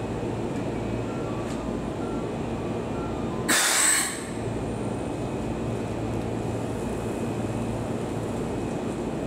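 Steady low hum of parked Keikyu electric trains, with a short, sharp hiss of compressed air from the train's air system about three and a half seconds in.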